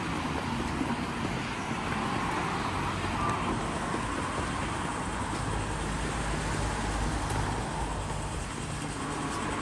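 A wheeled suitcase rolling over sidewalk paving stones, a steady rumble, with street traffic behind it.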